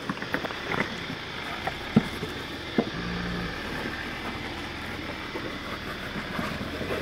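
A Jeep Wrangler JK off-roader running slowly as it crawls over sandstone rock steps, its tyres working over the rock. A couple of sharp knocks, the loudest about two and three seconds in, come from the tyres and underside meeting the rock.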